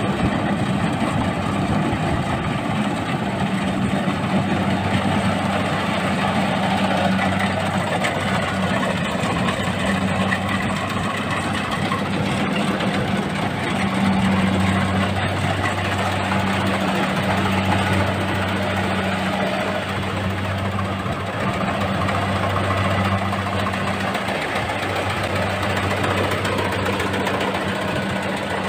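Kubota rice combine harvester running as it cuts through standing rice: a steady low engine drone under the clatter of the machinery.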